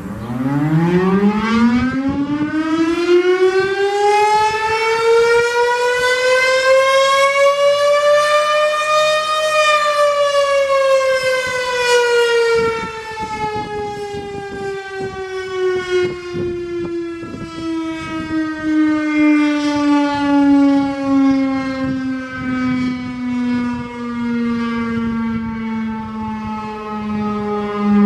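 Federal STH-10 outdoor warning siren sounding its noon test: one long wail that winds up quickly to a high peak about ten seconds in, then slowly slides back down in pitch, growling low by the end.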